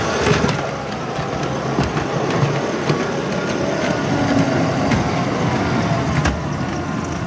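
1/16 scale Model T Ford railcar set running along garden tramway track: a steady mechanical rumble with occasional sharp clicks.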